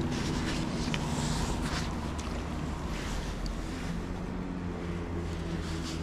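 Steady rush of a fast-flowing, high creek running close by, with a low rumble underneath and a few faint light clicks about one and two seconds in.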